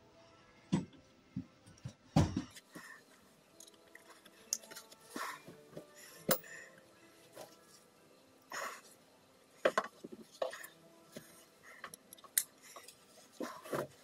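Clothing and backpack straps rustling and knocking as a hot water bottle backpack harness is put on and adjusted, with irregular clicks and a sharp knock about two seconds in.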